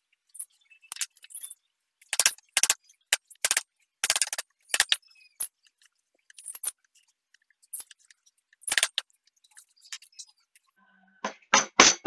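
Hand chisel cutting into wood in short, sharp strokes, irregularly spaced about one a second, as the carving is pared to shape; near the end a quick run of four louder strokes.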